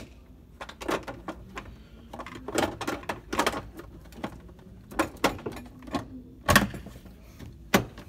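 Plastic ice bucket of a Beko side-by-side refrigerator being pushed back into its compartment in the door: a series of plastic knocks and clunks, the loudest about six and a half seconds in, as it is worked into place.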